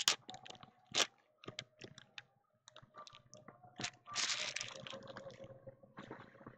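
Foil trading-card pack wrappers crinkling and crackling as they are handled, with a string of sharp clicks and a denser crinkling rush about four seconds in.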